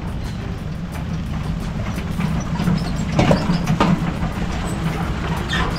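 Small ride-on tourist train running along its track: a steady low rumble with a few scattered clicks and knocks.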